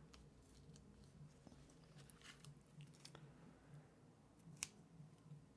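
Near silence: faint clicks and taps of hands handling a small fingerboard deck and its grip tape, with one sharper click about two-thirds of the way through.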